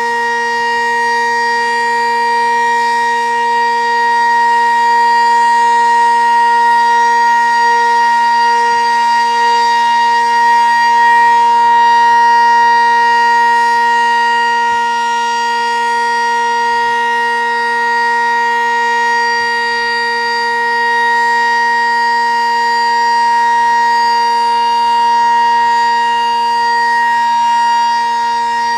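Sentry 10V2T electromechanical tornado siren sounding the alert signal: a steady, unwavering chord held with no rise or fall in pitch, the sound of its weekly test cycle. Its loudness swells and fades gently.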